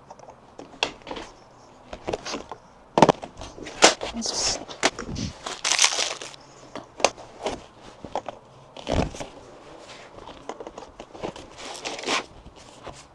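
Lightweight plastic display panels and their connectors being handled and fitted together into cube shelves: irregular clicks and clacks with short bursts of rustling, and a dull thump about nine seconds in.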